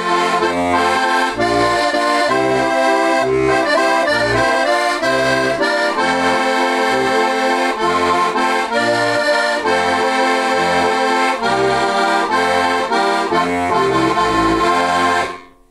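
Diatonic button accordion (heligónka) tuned in C/F, with four-voice hand-made brass reeds including one low octave, playing a folk-song tune with regular bass notes under the chords; the playing stops shortly before the end.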